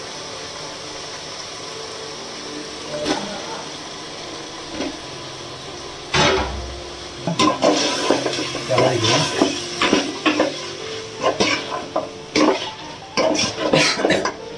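Mutton pieces sizzling in hot oil in a pan. From about six seconds in, a spoon repeatedly knocks and scrapes against the pan as the meat is stirred.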